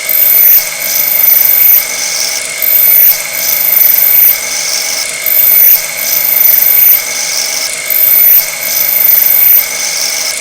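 Machine tool squealing shrilly as it cuts metal. The sound comes in a repeating cycle: roughly a second and a half loud, then a quieter stretch, about every two and a half seconds.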